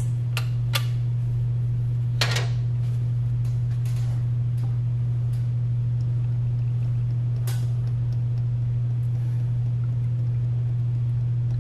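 Motor oil poured from a plastic quart bottle into a funnel in the engine's filler neck, with a few clicks and a short rustle of the bottle being handled. A steady low hum underlies it all and is the loudest sound.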